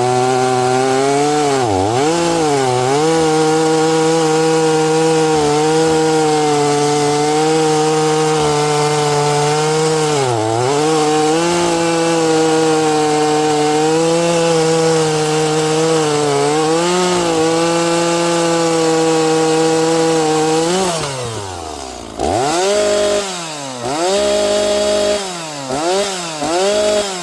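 Two-stroke Echo chainsaw with a freshly sharpened chain cutting maple at full throttle, its pitch dipping briefly under load a few times. About 21 seconds in it drops to idle and is then revved in several short bursts.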